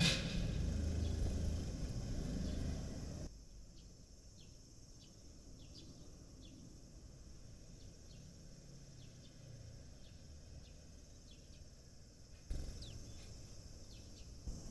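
Sparrows chirping: short high chirps scattered all through, over outdoor background noise. A low rumble fills the first three seconds, then the background drops away abruptly and comes back louder near the end.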